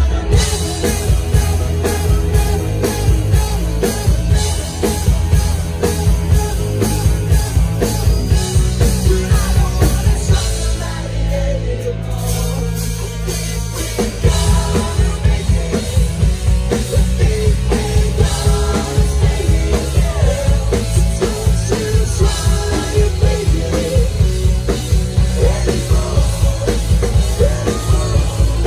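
Rock band playing live, the drum kit keeping a steady beat under guitar. A little before the middle, the drums drop out for a few seconds over held low notes, then kick back in.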